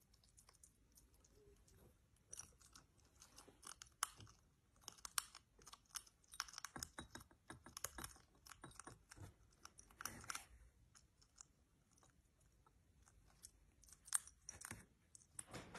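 African pygmy hedgehog crunching dry kibble: quick runs of small, crisp crunches and clicks that stop for a few seconds, then start again near the end.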